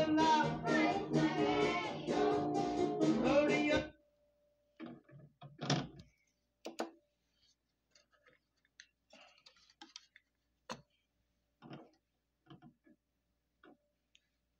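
A 7-inch vinyl single on a turntable playing guitar-led music, which cuts off suddenly about four seconds in. Then come scattered light clicks and knocks from the turntable and record being handled.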